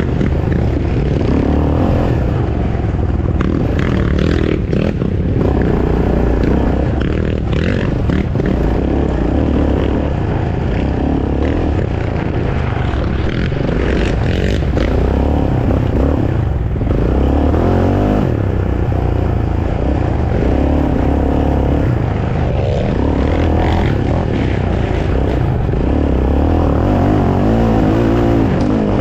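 Race ATV engine running hard over a rough woods trail, revving up and down repeatedly as the throttle is worked, with knocks and scrapes from the rough ground, loudest around four, eight and fourteen seconds in.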